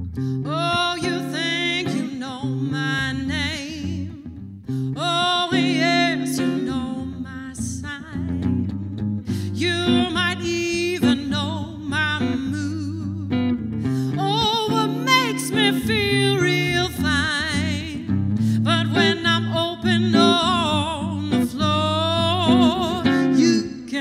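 Live music: a woman singing in phrases with vibrato over an acoustic guitar.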